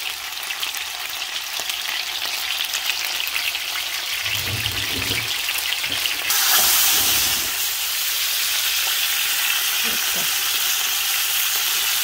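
Beef chuck roast searing in a pan of hot oil: a steady sizzle that jumps louder about six seconds in, with a few low bumps from handling the meat and pan.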